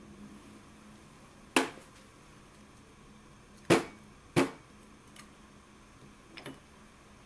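Three sharp knocks from an espresso tamper and portafilter being handled and set down on a hard surface: one, then about two seconds later two close together, followed by a few fainter clicks near the end.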